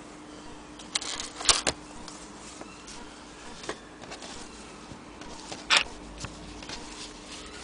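Handling noises at an antique hand-crank sewing machine: a few brief, irregular clicks and fabric rustles, the loudest a cluster about a second and a half in and another near six seconds. A steady low buzz sits under them.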